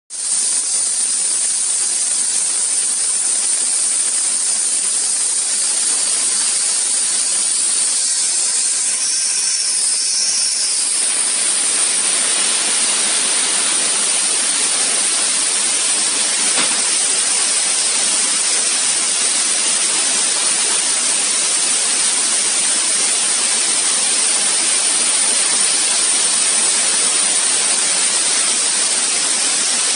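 100W CO2 laser cutter cutting through 11 mm plywood: a steady, loud hiss of rushing air that grows fuller about eleven seconds in.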